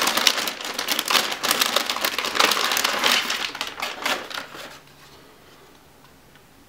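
Crinkling and rustling of a metallic anti-static bag as a graphics card is slid out of it, a dense crackle that stops about two-thirds of the way through.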